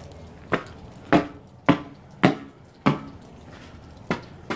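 Footsteps on a hard floor: five evenly paced steps, then a short pause and two more near the end.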